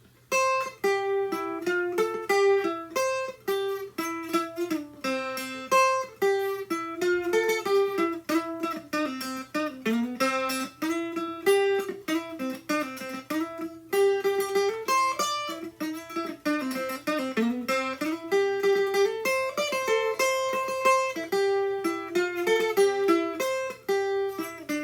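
American tiple, strung with eight strings in G-C-E-A ukulele tuning, played solo: a quick run of picked and strummed notes in a lively melody. The strings are freshly changed and the tuning is still settling, slightly off.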